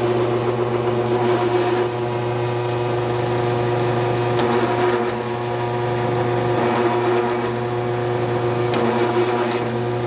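Drill press running with a steady motor hum while a 1/4-inch bit bores into a red hardwood block. The loudness dips slightly a couple of times as the feed eases.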